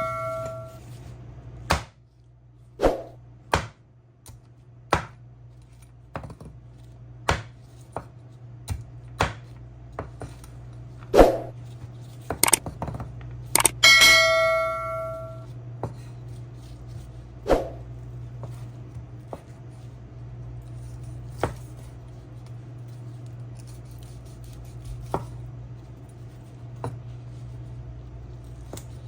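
Kitchen utensils and cookware knocking, one sharp knock about every second, then more sparsely. About halfway through, a piece of metal cookware rings out with a clear clang. A steady low hum runs underneath.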